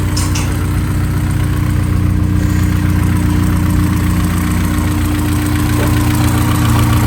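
Honda S2000 AP1's F20C inline-four idling steadily with the accessory drive belt removed and the pulleys stopped. Run this way, it isolates the strange noise to the pulley bearings (idler and tensioner pulleys).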